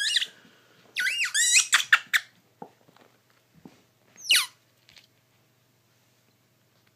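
Furry squeaky toy ball being squeezed, giving a few pitched squeaks that rise and fall: one at the start, a wavering run about a second in, and a single falling squeak a little past four seconds.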